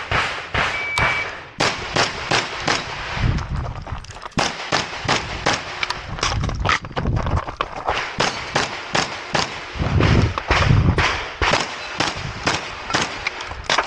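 A shotgun fired in a long string of rapid shots, often two or three a second, with short pauses between groups.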